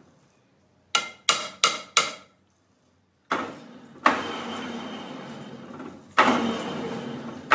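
Four quick ringing hammer blows on metal, about a third of a second apart. A few seconds in they give way to a sustained harsh metallic noise that starts sharply again twice and slowly fades each time.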